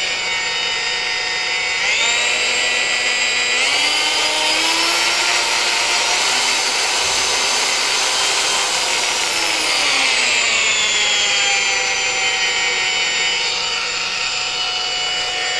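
Makita DGA511 18V brushless cordless angle grinder running with no disc fitted and no load, a high motor whine. Its variable speed is stepped up twice to a higher whine, held, then wound back down about two-thirds of the way through to a lower steady speed.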